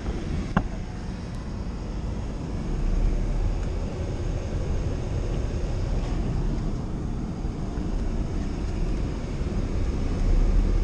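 Honda CRX driving slowly on packed snow, heard from inside the cabin: a steady engine and road rumble, a little louder about three seconds in and again near the end. A short click sounds about half a second in.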